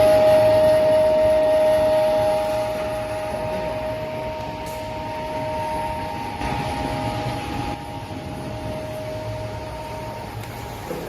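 Sawdust briquette machine running: a steady mechanical drone with a high, even whine over it. It eases slightly in loudness after about two seconds.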